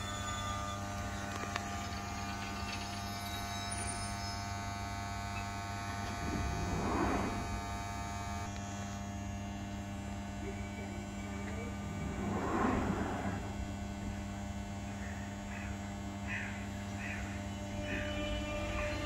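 Jubilee line 1996 Stock train standing at the platform, its onboard electrical equipment giving off a steady multi-tone electric hum. Two brief swells of rushing noise come about seven and twelve seconds in.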